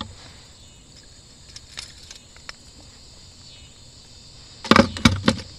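Steady high-pitched buzzing of insects in the riverside trees, with a cluster of sharp knocks and rattles near the end from the fish and lure being handled.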